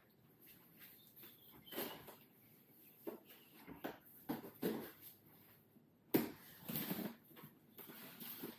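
Scissors slitting the packing tape on a cardboard shipping box: scattered scrapes and taps, then a longer run of cutting and rasping about six seconds in.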